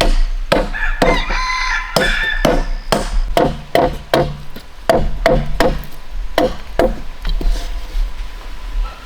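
Bamboo being chopped with a blade: sharp, ringing strokes about twice a second that thin out after about seven seconds. A rooster crows about a second in.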